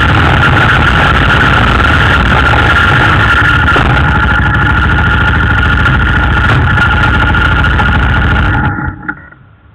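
Yamaha Raptor 250 ATV's single-cylinder four-stroke engine running steadily, then cutting off suddenly near the end, leaving a few faint clicks.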